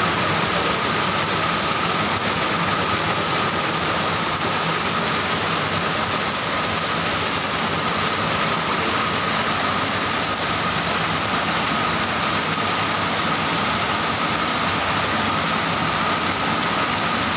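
Heavy rain pouring down in a steady hiss onto a wet paved street, with a faint steady tone underneath.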